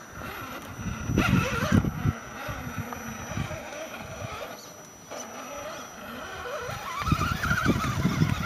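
Axial SCX10 radio-control rock crawler climbing sandstone: its small electric drive motor whines, rising in pitch about seven seconds in as the throttle opens, while the tyres and chassis scrabble and bump on the rock in uneven bursts.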